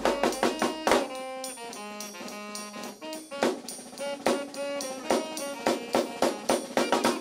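Brass band playing live: trumpet and saxophone lines over a steady drum beat.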